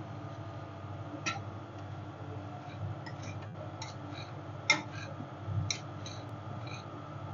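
Scattered sharp clicks and taps of metal spatulas on a rolled ice cream cold plate, the loudest a little past halfway, over a steady low hum.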